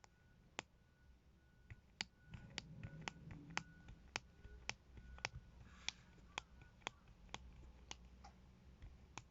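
Cosmetic container lids clicking open and shut repeatedly, a sharp click roughly every half second.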